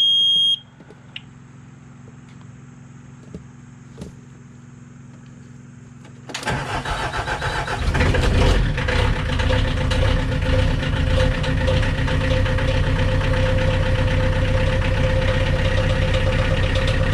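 Excavator's diesel engine being started: a high steady beep cuts off just after the start, a faint hum follows for several seconds, then the engine cranks about six seconds in, catches and settles into a steady idle with a constant whine.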